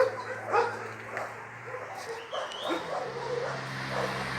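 Dogs barking and yipping in short sharp calls, loudest in the first second, over a steady low hum that grows from about three seconds in.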